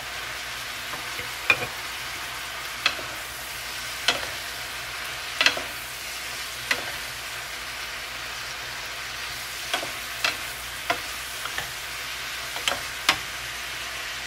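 Stir-fry sizzling steadily in a nonstick frying pan as wooden spatulas toss napa cabbage, shrimp and vegetables over high heat. About a dozen sharp, irregular clacks of the wooden spatula against the pan cut through the hiss.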